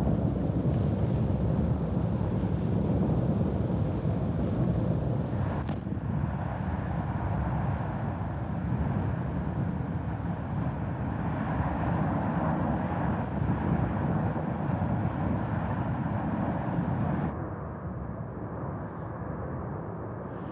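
Field recording of the La Palma volcano erupting, played back: a continuous deep roar with one sharp crack about six seconds in. The roar becomes quieter and duller a few seconds before the end.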